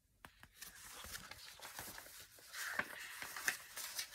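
Paper pages of a paperback picture book rustling and flapping as they are handled and turned, growing louder in the second half.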